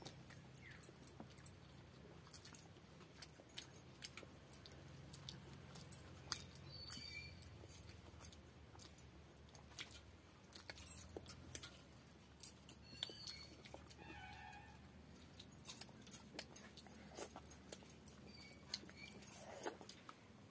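Quiet eating by hand: many small wet clicks of chewing and lip smacks from rice and fish curry, with fingers working rice on a banana leaf. Now and then there is a light clink, like bangles knocking together on the eating hand.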